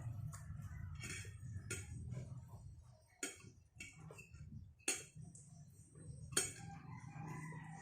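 Eating utensils clicking against a plate during a meal: four sharp clicks about a second and a half apart, the last the loudest, over a low steady hum.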